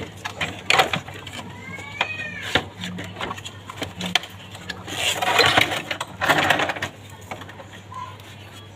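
Clicks, knocks and scraping as the plastic casing of a split air conditioner's indoor unit is taken apart for cleaning, over a low steady hum.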